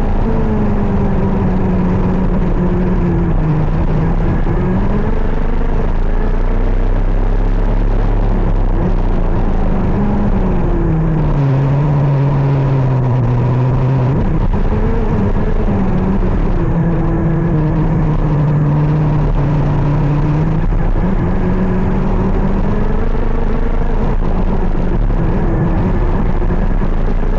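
KZ 125 shifter kart's 125 cc two-stroke engine at racing pace, its note sliding down as it slows for corners and climbing again as it accelerates, several times over, with the lowest dip about halfway through.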